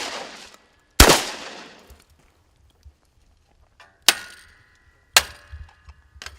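Shotgun fired at thrown clay targets: a loud shot about a second in with a long echoing tail, then two shorter sharp cracks with a metallic ring at about four and five seconds.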